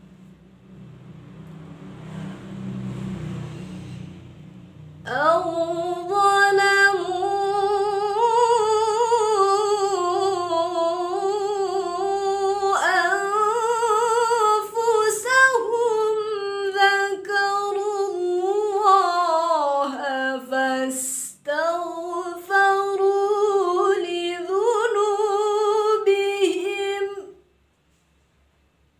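A woman's voice reciting the Qur'an in a melodic chanted style, holding one long, wavering, ornamented phrase for about twenty seconds. It starts after a few seconds of faint hiss and stops abruptly near the end.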